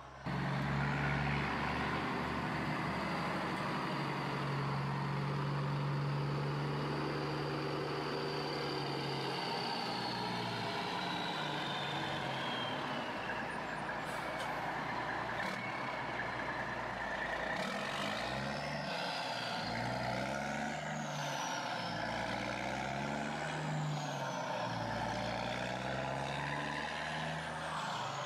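Truck-like engine sound of remote-control construction machines at work: a steady drone whose pitch rises and falls repeatedly in the second half as they rev.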